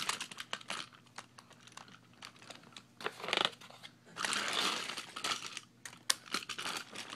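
Rustling and scattered clicks as a toy engine is pushed by hand along a toy track on carpet, mixed with handling noise, with a few louder rustling bursts partway through.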